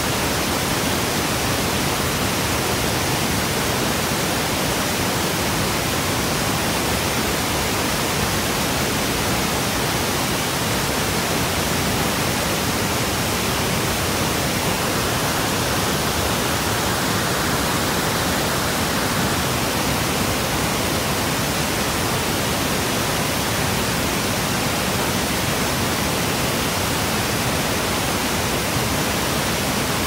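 Tiered waterfall in heavy flow, with white-water rapids below it: a loud, unbroken rush of falling and churning water that stays even throughout.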